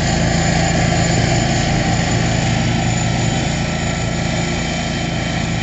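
Hustler zero-turn mower with a 54-inch deck running steadily while cutting grass, an even engine hum with the noise of the blades.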